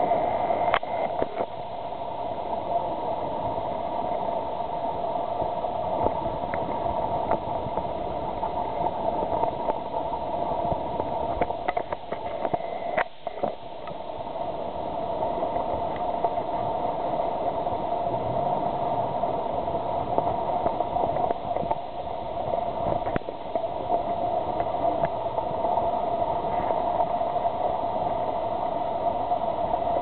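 Mitsubishi L300 4WD van crawling slowly over rutted dirt, its engine running under light load, with creek water rushing steadily. Occasional sharp clicks and knocks.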